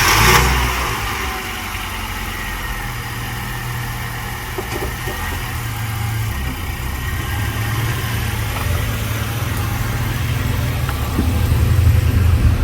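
Car engine just started, running steadily, a little louder toward the end.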